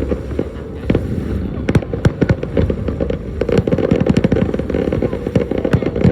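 Aerial fireworks going off: a string of sharp bangs over a steady low rumble, thickening about halfway into a rapid, dense crackle of many small reports.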